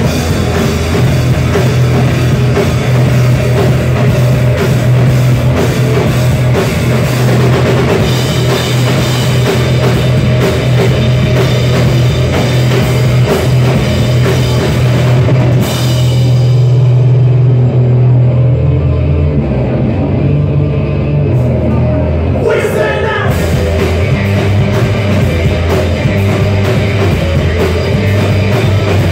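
Live rock band playing loud: electric guitar, bass guitar and drum kit, with a heavy bass line. For about six seconds past the middle the top end drops out, leaving a low, bass-heavy passage, before the full band comes back in.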